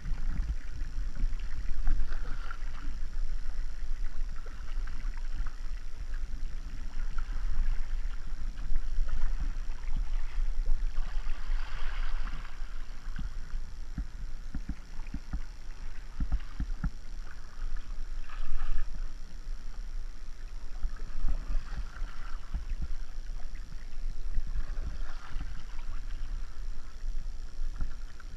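Kayak paddle strokes: blades dipping and pulling through the water at an uneven pace, with splashing and water washing past the hull, over a steady low rumble.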